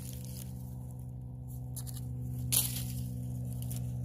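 A few brief crackles and scrapes of digging at a wild plant's root, the clearest about two and a half seconds in, over a steady low hum.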